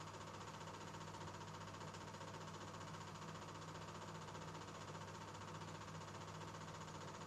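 Faint steady hum and hiss that does not change, with no distinct sounds.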